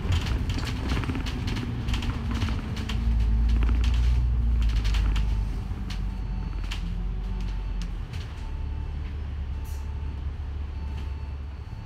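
City bus on the move, heard from on board: a steady low engine rumble that swells for a couple of seconds a few seconds in and then eases, with frequent creaks and rattles from the bus's interior fittings, busiest in the first half.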